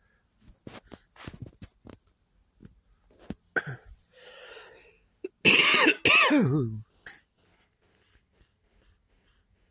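A person coughs and clears their throat close to the microphone: a loud, harsh cough a little past halfway, its voice dropping low at the end. Soft clicks and rustles come before it.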